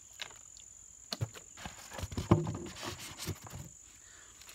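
A run of irregular knocks and rustles, loudest about two seconds in, over a steady high insect buzz.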